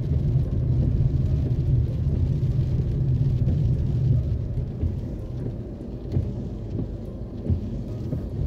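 Low, steady rumble of a car's engine and tyres on a wet street, heard from inside the cabin while driving slowly in city traffic with the wipers on. It grows a little quieter about halfway through.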